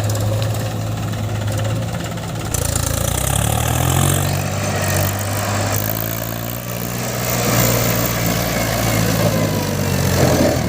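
Diesel engines of a backhoe loader and a farm tractor running near idle. The engine note shifts about two and a half seconds in and again around six seconds.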